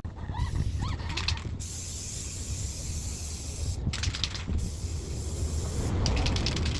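Ironlak aerosol spray-paint can spraying in hissing bursts, broken three times by short runs of quick rattling clicks.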